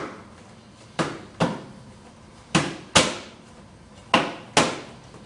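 Focus mitts slapping against a partner's arms held in a cover: sharp smacks in pairs about half a second apart, a pair every second and a half, three pairs in all, with a short room echo after each.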